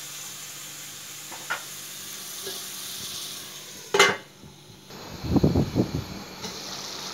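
Chicken and tomatoes sizzling in an aluminium karahi as they are stirred with a wooden spoon. About four seconds in, the aluminium lid goes on with a single clink that muffles the sizzle. A brief clatter follows as the lid is settled.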